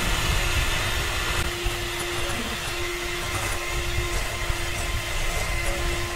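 Electric hand mixer running with a steady hum, its beaters whipping instant coffee, sugar and hot water in a glass bowl, early in beating dalgona coffee while the mix is still liquid.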